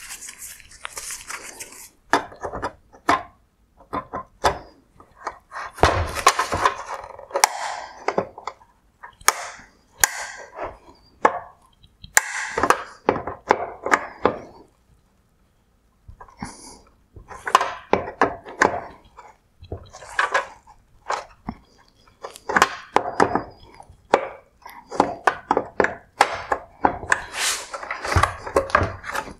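Plastic parts of a Mercedes-Benz E-Class LED headlight being worked apart by hand: irregular clicks, knocks and scraping as a white plastic clip is pushed in and a black plastic inner-mount bracket is pried and pulled out, with a short pause about halfway through.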